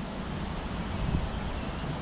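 Wind buffeting the microphone: a steady low rumble with a hiss over it.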